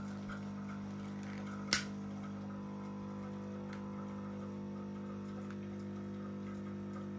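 A long-nosed utility lighter clicking as it is fired to light candles: one sharp click about two seconds in, then fainter ticks. Underneath runs a steady low electrical hum.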